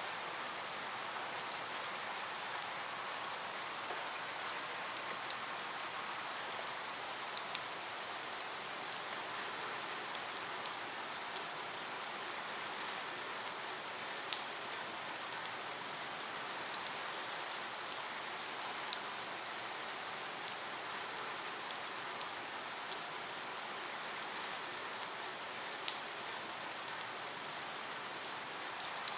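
Steady rain falling, a constant hiss with many scattered sharp drop ticks on a surface.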